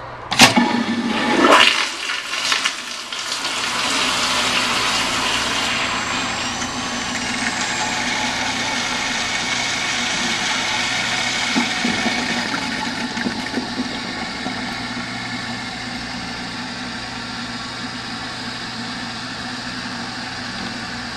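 Sloan Flushmate pressure-assist toilet flushing: a sudden, loud rush of pressurized water and air lasting about two seconds, followed by a steady hiss of water as the tank refills.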